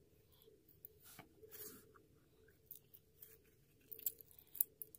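Faint sticky clicks and crackles of clear slime from a cut-open gel squishy being pulled and pressed between fingers, with a few sharper snaps near the end.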